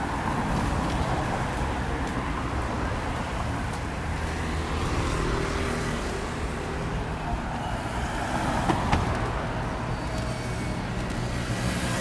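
Road traffic at a busy city intersection: a steady rumble of car and scooter engines passing, with one brief sharp click about nine seconds in.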